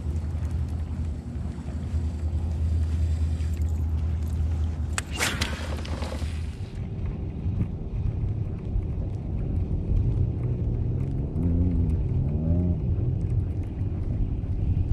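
Steady low rumble aboard a fishing kayak under way on the water, with a short noisy burst about five seconds in and a wavering tone rising and falling a few times near the end.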